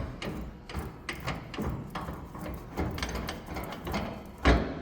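Irregular knocks and clanks from the cardboard baler being handled, a few to the second, with one louder knock near the end.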